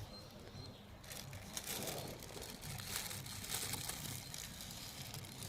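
Plastic cover crinkling and rustling as it is handled and wrapped, starting about a second in.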